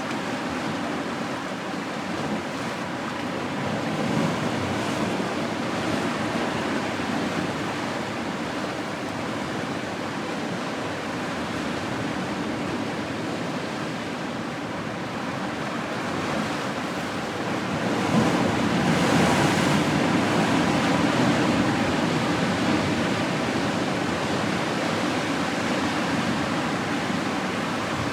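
Steady rush of ocean water, with no distinct events, growing louder about eighteen seconds in and easing off slightly near the end.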